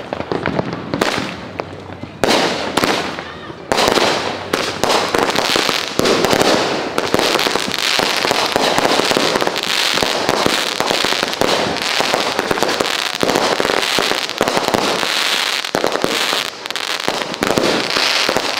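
Fireworks going off in quick succession: dense crackling and popping that thickens about two seconds in and then keeps up with barely a break.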